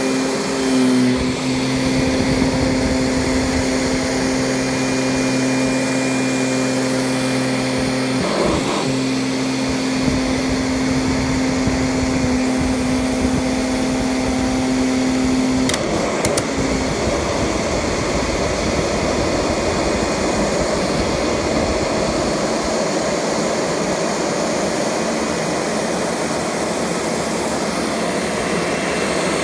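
Kirby Sentria II upright vacuum cleaner running over carpet while picking up cat hair, a steady motor-and-fan hum. Through the first half it carries a clear steady tone that wavers briefly once. About halfway through the tone drops out, leaving a more even rushing of air.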